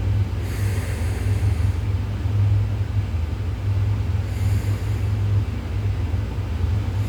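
Steady low rumble of background room noise, with two breathy sniffs of whiskey from a tasting glass, one about half a second in and a shorter one about four and a half seconds in.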